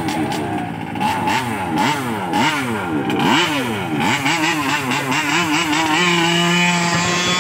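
Small 20 cc two-stroke petrol engine of an RC Baja buggy revved in quick blips, its pitch rising and falling about twice a second, then held at a steady high pitch near the end.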